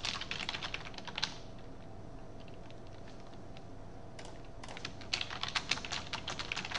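Typing on a computer keyboard: a quick run of keystrokes, a pause of about three seconds, then steady typing again.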